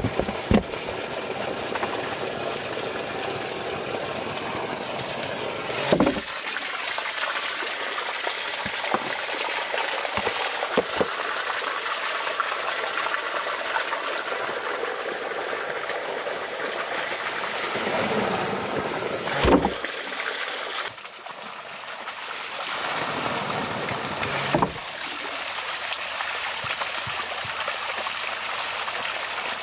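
Water running and pouring steadily through a water-powered rice pounder (monjolo), with a few heavy wooden knocks as its pestle drops into the log mortar of rice, about six seconds in, near twenty seconds and about twenty-five seconds in.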